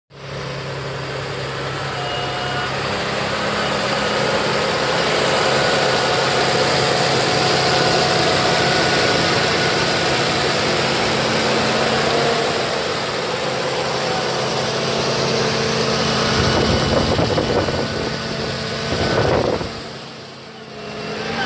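The 6.7-litre Cummins turbodiesel of a 2010 Dodge Ram 4500 idling steadily, heard close up in the open engine bay. A rush of noise on the microphone comes about three-quarters of the way in, then the level dips briefly.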